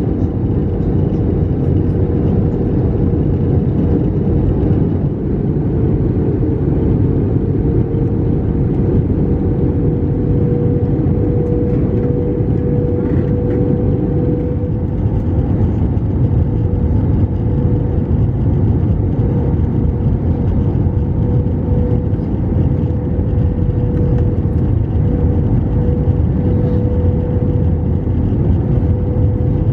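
Cabin noise of an Airbus A321-200 descending on final approach: a steady rumble of engines and airflow, with one engine tone held at the same pitch throughout.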